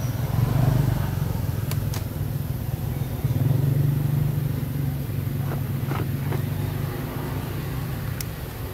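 Low, steady motor-vehicle engine rumble, swelling about half a second in and again around three and a half seconds, with a few faint clicks.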